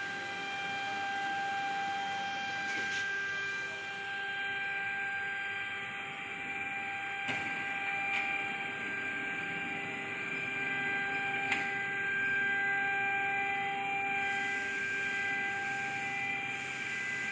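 Steady electrical hum and high whine from running factory machinery, holding one pitch throughout, with a few faint clicks.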